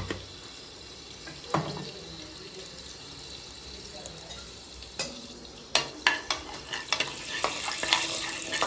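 Chilli powder frying in hot oil in an aluminium pressure cooker, blooming for colour, with a low sizzle. A single knock comes early on. From about five seconds in, a metal spatula stirs and knocks against the pot, and the sizzle grows louder near the end.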